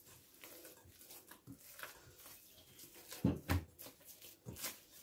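Hands turning and patting a ball of oiled bread dough in a glass bowl: faint squelching and light taps, with two louder soft thumps a little past three seconds in.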